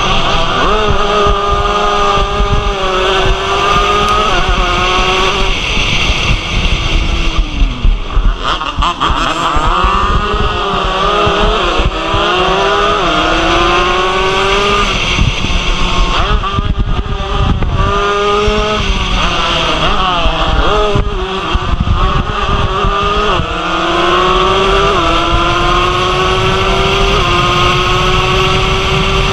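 Race-prepared two-stroke Yamaha DT motorcycle engine at full throttle. Its pitch climbs through each gear and drops back at every upshift, under a heavy wind rush on the microphone. About eight to twelve seconds in the engine note falls and wavers as the bike slows and downshifts, then it climbs through the gears again.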